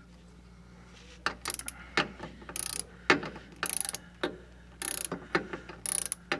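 Ratchet wrench clicking in short repeated bursts, about once a second, as a 14 mm bolt holding a Subaru rear wheel bearing hub is backed out. The clicking starts about a second in.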